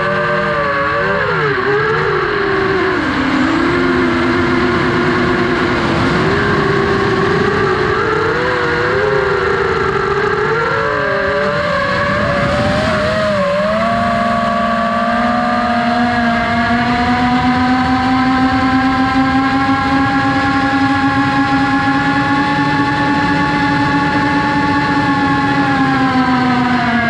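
FPV racing quadcopter's brushless motors whining, the pitch rising and falling with throttle changes, then holding high and steady for a long stretch before dropping near the end.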